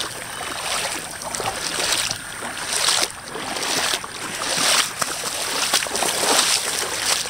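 Floodwater rushing and sloshing, swelling and fading in surges every second or so.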